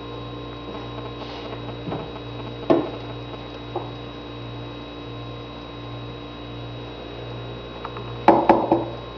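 Eggs being cracked on the rim of a blender jar and dropped in: a sharp knock about three seconds in and a quick cluster of knocks near the end, over a steady low electrical hum.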